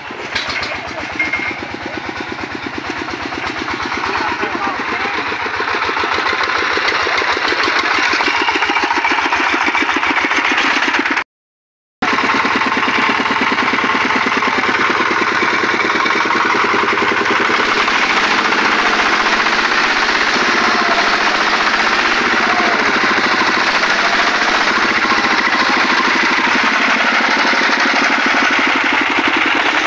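Single-cylinder diesel engine of a công nông two-wheel tractor running close by, a fast, steady chugging. It drops out for a brief silent gap about eleven seconds in.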